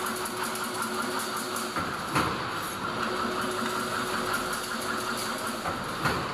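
Automatic double-wire chain link fence machine running: a steady mechanical clatter with a hum that stops briefly and starts again, and a sharp clank about two seconds in and again near the end, repeating about every four seconds.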